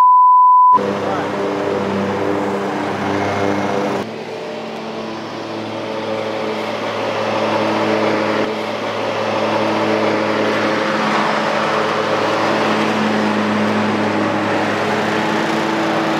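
A short censor beep, then the engine of a zero-turn riding lawn mower running steadily, getting louder from about six seconds in as the mower drives up close and past.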